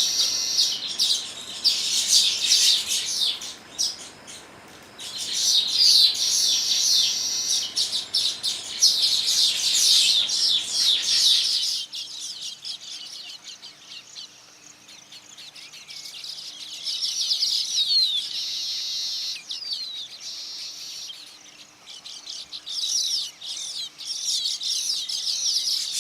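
Baya weavers chattering and calling: dense, overlapping high chirps and buzzy trills that thin out at times. About halfway through, the low background rumble drops away suddenly and a faint steady low hum is left under the birds.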